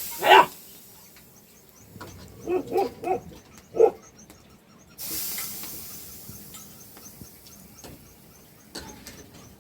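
Short animal calls: one loud call with falling pitch at the start, three quick calls about two and a half seconds in, and another a second later. A hiss starts suddenly about halfway through and fades.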